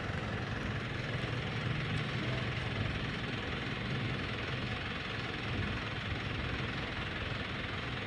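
Engines of roadworks machinery running steadily, a continuous low hum with no breaks.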